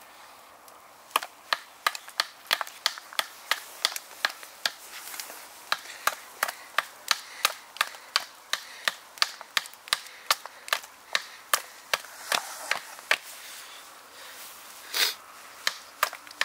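A bushcraft knife carving a wooden stick in quick shaving strokes, about two or three a second. The strokes pause around thirteen seconds in, then come back with one longer, louder scrape.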